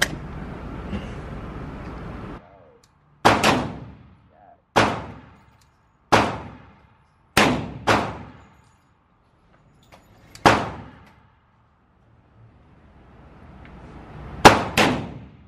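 About nine 10mm pistol shots from a Glock 40, fired at an unhurried, irregular pace with some in quick pairs, each with a ringing tail. A steady rushing noise runs for the first two seconds and cuts off suddenly.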